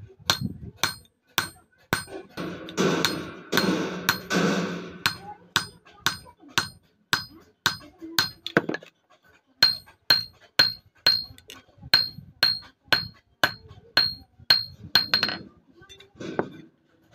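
Hand hammer striking a thin steel sickle strip on a small anvil in a steady run of blows, about two a second, each with a high metallic ring: the blade is being cold-forged without heating.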